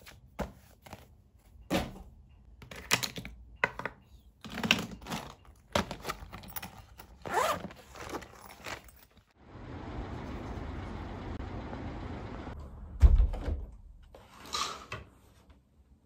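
Packing-up handling sounds: a fabric zip pouch being zipped and handled, with items knocked and set down. Then a steady rushing noise for about three seconds and one heavy thump, the loudest sound.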